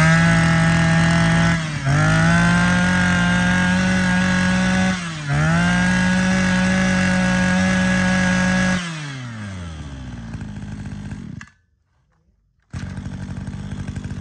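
Maruyama 23cc two-stroke brush cutter engine held at full throttle, dipping and climbing back twice as the throttle is let off and squeezed again. About nine seconds in it falls back to idle; the sound cuts out for about a second, then the engine idles steadily.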